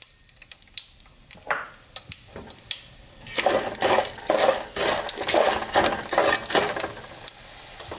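Hot oil sizzling and crackling in a pot of frying tempering (mustard seeds, chana dal and curry leaves), with a spoon stirring and clinking against the pot. Scattered clicks at first, then a much louder, dense crackle from about three seconds in.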